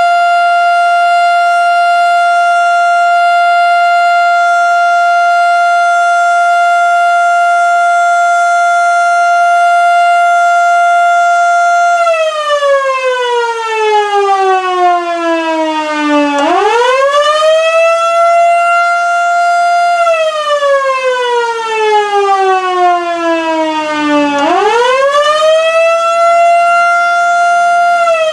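1955 Model 2 electromechanical civil-defense siren sounding its steady Alert tone, a single held pitch, for about twelve seconds. It then switches to the Attack signal, winding slowly down in pitch, swooping back up, holding briefly, and winding down and up again near the end.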